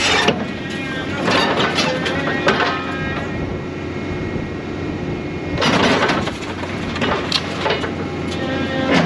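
Diesel engine of a scrap-handling grapple machine running steadily, with bursts of metal scraping and crunching as the grapple presses scrap metal into the truck box, loudest about a second and a half in and again near six seconds.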